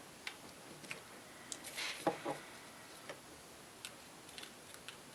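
Scattered light clicks and taps of small objects being handled on a work surface, with a brief rustle and a knock about two seconds in.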